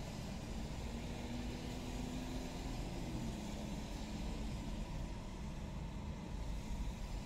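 Car engine and road rumble heard from inside the cabin in slow traffic, with a faint hum that drops in pitch about three seconds in.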